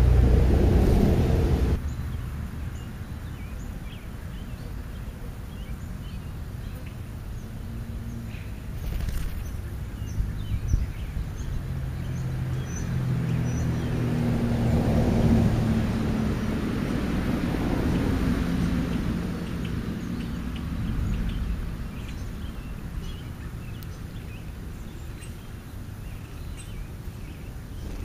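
Passing traffic on a residential street: a low vehicle drone that swells and fades around the middle, with short bird chirps scattered throughout. A louder low rumble at the start stops abruptly under two seconds in.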